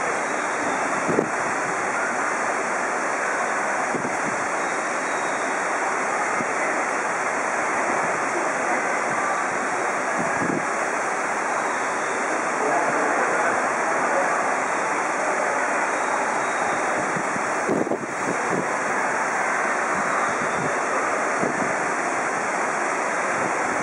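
Steady rushing noise with no change in level, broken by a few faint clicks.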